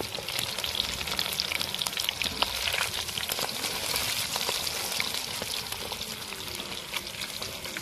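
Chicken pakoras deep-frying in hot oil in a kadai, a steady crackling sizzle, as a wire skimmer stirs them through the oil.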